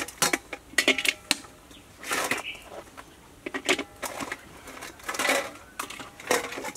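Mud crabs' hard shells clattering and scraping against a stainless steel bowl and dropping into a metal wok: a string of irregular sharp clacks, some with a brief metallic ring.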